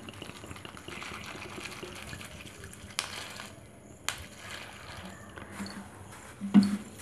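Water trickling from a plastic bottle onto puffed rice in a steel bowl, wetting it for washing. A couple of sharp clicks follow, and a short low thump near the end as a hand presses into the wet rice.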